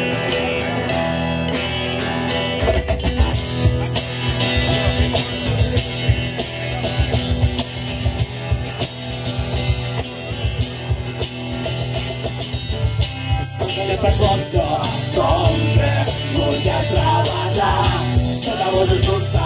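Live rock band with acoustic and electric guitars playing a song. About two and a half seconds in, a steady beat with bass kicks in, and singing comes in over the last few seconds.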